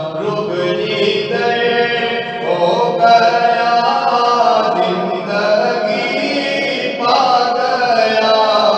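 A man singing an Urdu naat in long, held melodic phrases, with no instruments heard.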